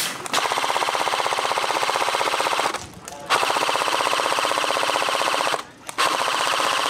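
Airsoft gun firing on full auto in three long bursts, a fast, even rattle of shots with short breaks about three seconds in and again near six seconds.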